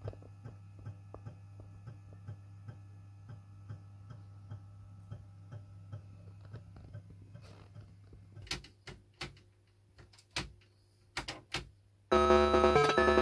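Philips VG-8235's internal 360 KB floppy drive running as it loads a disk: a steady hum with faint regular ticks, about three a second, then a few louder clicks of the head stepping. The freshly belted drive is spinning and reading. About 12 seconds in, loud video game music starts.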